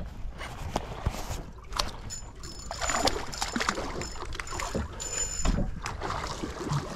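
Water lapping and splashing against a small fishing boat's hull, with irregular knocks and clatter on board.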